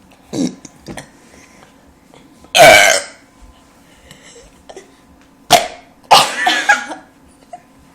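Loud human burps, one after another; the loudest and longest comes about two and a half seconds in, with shorter ones near the start and around six seconds.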